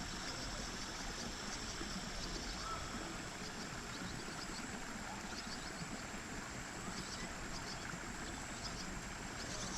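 Steady outdoor background noise, an even hiss, with scattered faint short bird chirps and a thin, steady high-pitched whine.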